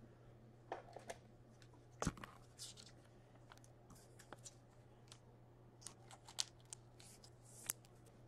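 Faint scattered clicks and rustles of a trading card being handled in a rigid plastic card holder, the sharpest click about two seconds in.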